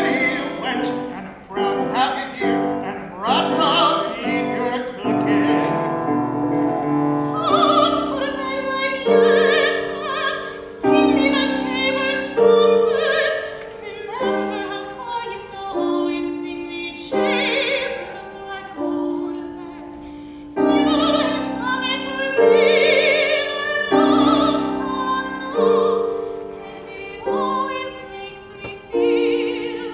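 Operatic singing with vibrato over piano accompaniment. The sung line settles into long held notes about a quarter of the way through.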